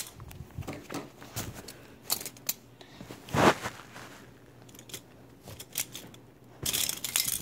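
Handling noise close to the phone's microphone: irregular clicks, scrapes and rustles, loudest a little past three seconds in and again near the end.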